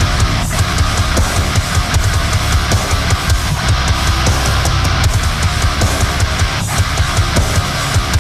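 Background music: loud heavy-metal style rock with distorted guitar and a driving drum beat.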